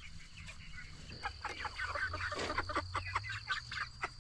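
A flock of young chickens making many short, quiet clucks and chirps.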